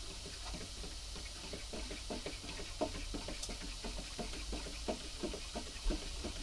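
A spoon stirring stock in a plastic measuring jug to dissolve corn flour, tapping against the sides of the jug in quick, irregular taps, several a second.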